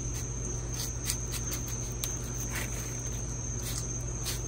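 Knife cutting watermelon into a stainless steel bowl: a few soft, short cutting sounds and light taps. A steady high-pitched whine and a low hum run underneath.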